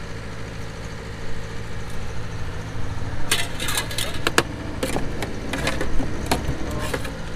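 Steady low engine hum with a scatter of sharp clicks and knocks from about three seconds in.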